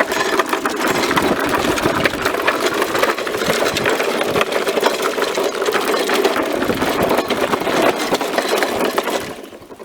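Briggs & Stratton four-stroke engine on a Victa rotary lawnmower running at speed, a fast, even mechanical rattle, then dropping away sharply near the end.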